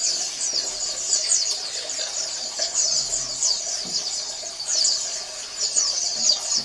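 A flock of white-eyes (pleci) singing together: a dense, continuous chorus of rapid, overlapping high-pitched twitters and trills. This is the kind of colony song played to set caged white-eyes singing.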